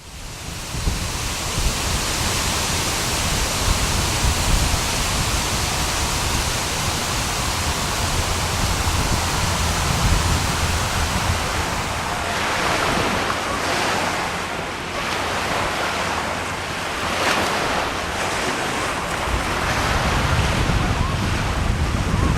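Wind buffeting the microphone with a low rumble over a steady rush of water, swelling in gusts around the middle and again near the end.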